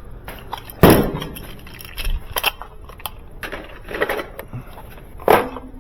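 A handful of separate knocks and metallic clinks from objects being handled, the loudest about a second in.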